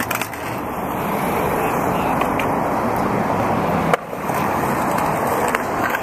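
Skateboard wheels rolling on a concrete bowl, a steady rumbling hiss, broken by a sharp click and a brief drop in level about four seconds in.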